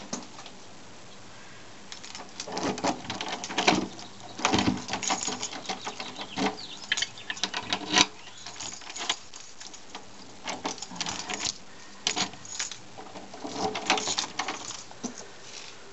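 A brass doorknob on a front door being turned and jiggled by hand, its latch and lock clicking and rattling in irregular bursts starting about two seconds in.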